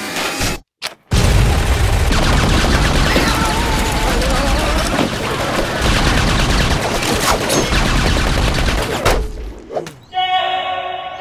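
Cartoon sound-effect barrage of rapid gunfire, many shots running together, breaking in after about a second of silence and dying away about nine and a half seconds in. A held pitched sound starts near the end.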